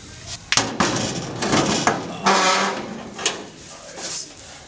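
Sheet-metal floor pan being pulled up and shifted into place, with scraping and sliding metal noises and several sharp knocks.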